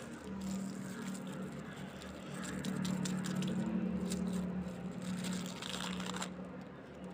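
Packaging being handled and unwrapped: scattered crinkles and light clicks over a steady low hum.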